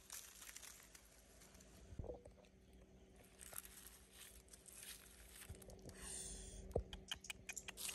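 Faint crackling and rustling of dry leaves and twigs on the ground while caught fish are handled and strung on a stem, with scattered sharp clicks.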